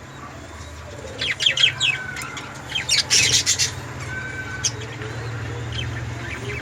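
Budgerigars chirping and squawking in short clusters of calls, mostly between about one and four seconds in, over a low steady hum.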